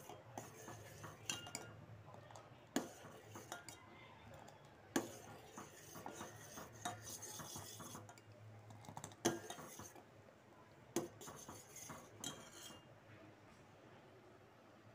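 Steel ladle stirring a thick milk mixture in a stainless steel saucepan, scraping the bottom and sides, with four sharp metal clinks of the ladle against the pot among the smaller scrapes.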